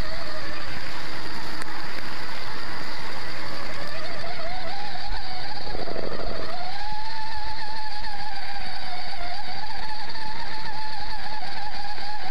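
Drive motor and gears of an RC rover truck whining as it drives, the pitch wavering with speed, dipping sharply about six seconds in and then climbing back.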